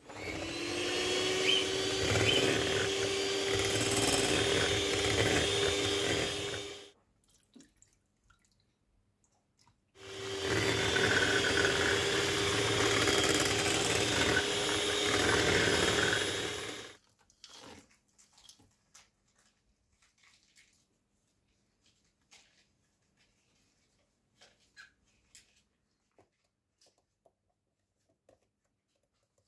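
Electric hand mixer running with its beaters whisking cheesecake filling in a glass bowl, in two runs of about seven seconds each with a short stop between, the motor's pitch rising briefly as each run starts. After that, only faint scattered clicks and taps.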